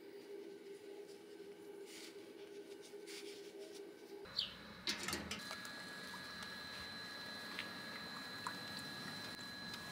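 Faint wet rubbing of a cotton-wrapped electrode swabbed over a bare steel motorcycle fuel tank, with a few sharp clicks about four to five seconds in. A faint steady high whine runs under it.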